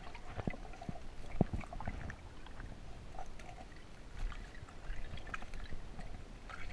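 Muffled underwater sound as heard by a submerged camera: a low rumble of moving water with scattered small clicks and taps.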